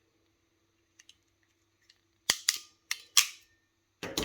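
Ratchet of a Preciva DEM49XN hexagonal ferrule crimping tool clicking four times in quick succession as the handles are squeezed onto a wire-end ferrule, then a louder snap near the end.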